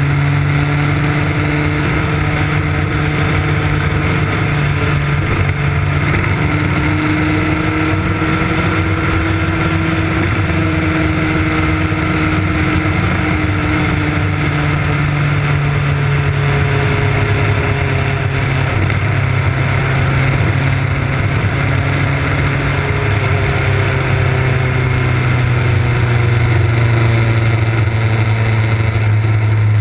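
Motorcycle engine running at a steady cruising speed, its pitch drifting gently up and down, over a constant rush of wind and road noise.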